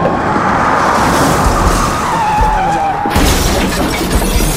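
A car's tyres skidding with a screech that slides down in pitch, then a sudden crash about three seconds in.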